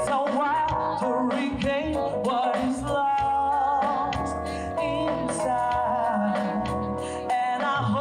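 A woman singing live into a microphone over instrumental backing with a bass line. Her long held notes carry a wavering vibrato.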